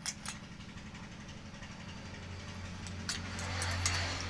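Metal clicks of a spark plug box spanner and tommy bar as a spark plug is screwed into the cylinder head of a Bajaj Maxima Z engine: two clicks at the start and a small cluster about three seconds in. Under it runs a steady low hum that swells a little near the end.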